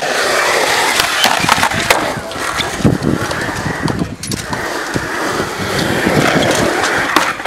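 Skateboard wheels rolling over a concrete skatepark surface, broken by several sharp clacks of the board's deck and trucks hitting the ground.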